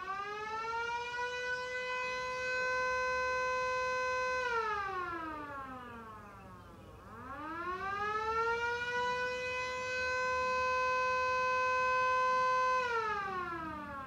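Vixen Horns siren sounding a wail. It winds up to a steady high pitch, holds for about two seconds, winds down about halfway through, then winds up again and holds. It starts falling again near the end.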